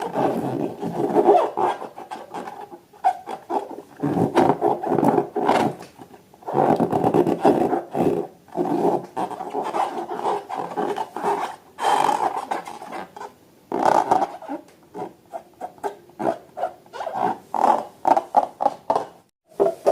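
Rubber balloons and slime being squeezed and rubbed by hand: rubbing squeaks and squishing in stretches of a second or two, broken by short pauses, becoming quicker and choppier in the second half.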